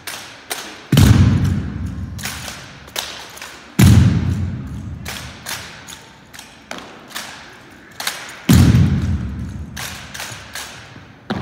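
Exhibition rifle drill: three heavy thuds on a hardwood gym floor struck in unison, each echoing through the hall, among many lighter taps and clacks of the drill rifles being handled.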